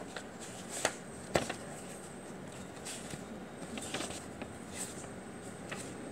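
Paperback book being handled right at the microphone: soft paper rustles and a few sharp clicks, the loudest about a second in, over a steady hiss.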